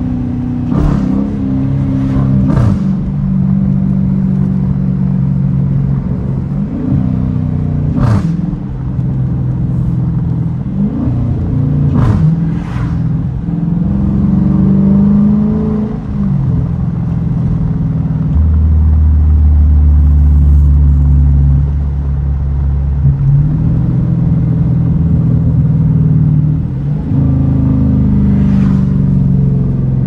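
Dodge Challenger R/T's 5.7-litre Hemi V8 heard from inside the cabin while driving. Its note rises and falls with throttle and gear changes, with a deep steady drone for several seconds past the middle. A few sharp knocks come through here and there.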